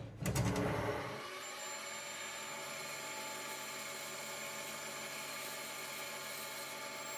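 Metal lathe running steadily with a whine while a boring bar takes a light cut inside a spinning brass bearing blank. A few knocks sound in the first second.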